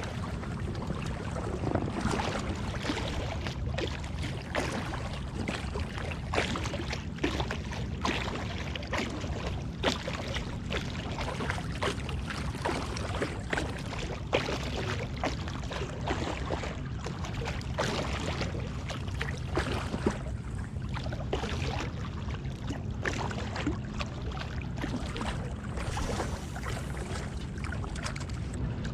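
Water splashing and lapping around a float tube on the bay: a steady low wash with many small irregular splashes.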